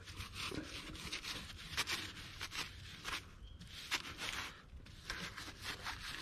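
An old paintbrush scrubbing wet silt off a car's windshield glass: a run of short, irregular scratchy brush strokes with a couple of brief pauses.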